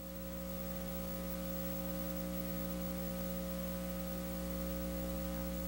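Steady electrical mains hum with a stack of overtones and a faint hiss underneath, left bare when the race call cuts off abruptly at the start.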